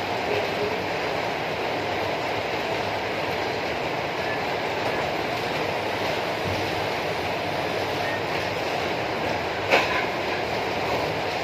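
A steady rushing noise with one sharp knock near the end.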